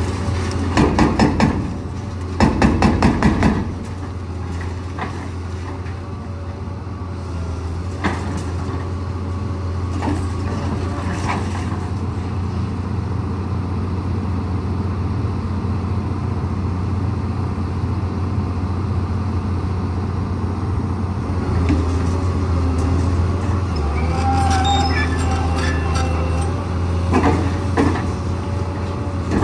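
Liebherr 954 excavator's hydraulic breaker hammering in two short bursts of rapid blows in the first few seconds. After that the excavator's diesel engine runs steadily, with occasional single knocks and a brief high tone about three-quarters of the way through. The hammering starts again right at the end.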